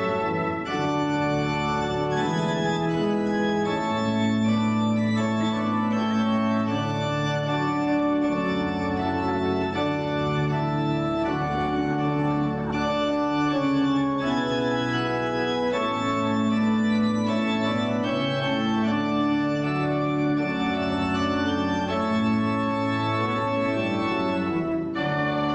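Organ playing slow, sustained chords as processional music for the bride's entrance.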